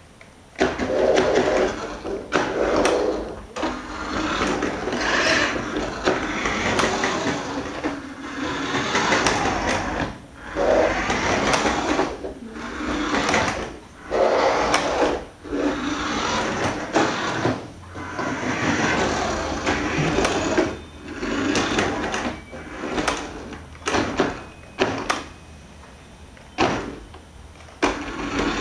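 Radio-controlled 1:14 Audi Q7 model's small electric drive motor whirring in spurts of a second or two with short pauses, its tyres rolling on a laminate floor as it drives forward and back.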